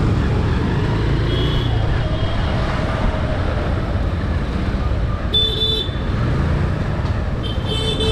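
Street traffic: the steady din of passing vehicles' engines and tyres, cut by short vehicle horn beeps about five seconds in and again near the end.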